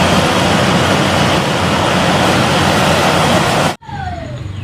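Loud, steady heavy-machine engine rumble with a hiss over it, the engine sound for an excavator. It cuts off abruptly near the end, leaving a quieter falling tone.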